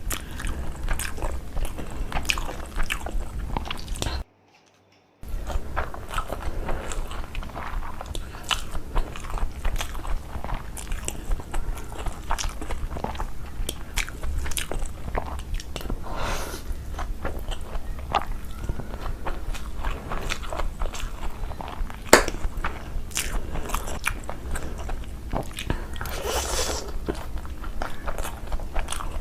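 A person eating close to the microphone: chewing and biting food, with many small wet clicks and mouth sounds. The sound cuts out completely for about a second, four seconds in, and one sharp click stands out about 22 seconds in.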